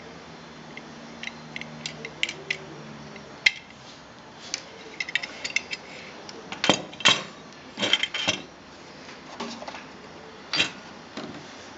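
Small metal clicks and clinks of a folding steel camping gas stove being handled, its wire valve key and hinged pot-support arms moving, with a cluster of louder clinks around the middle.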